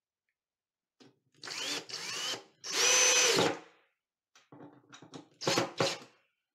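Cordless drill driving a screw into the holder's mounting bracket. It makes two short spin-ups with a rising whine, then a longer run at full speed about two and a half seconds in, and two quick trigger blips near the end.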